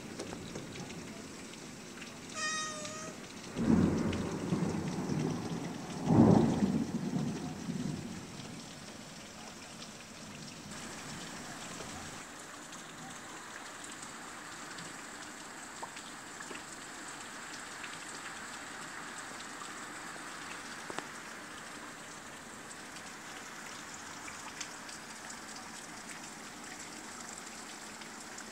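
Thunder rumbling in two loud swells about four and six seconds in, dying away by about eight seconds, over steady rain on the window. Just before the thunder, a cat gives one short meow.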